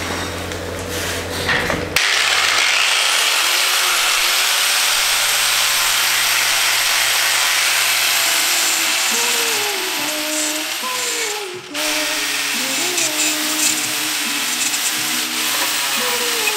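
Angle grinder with a wire brush wheel starting up about two seconds in, its whine rising as it spins up. It scours thick black underseal off the steel of a car's wheel well with a loud, harsh rasp, cutting out briefly about two-thirds of the way through before starting again.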